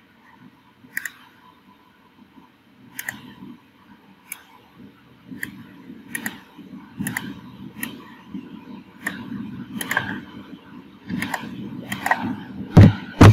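Computer mouse clicking, single clicks about once a second over faint room noise, with two louder thumps near the end.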